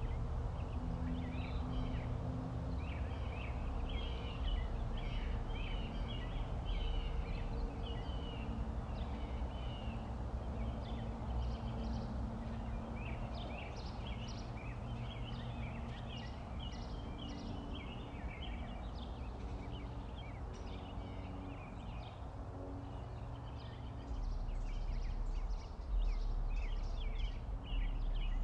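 Small birds chirping and twittering in quick, repeated calls over a steady low outdoor rumble, which grows louder near the end.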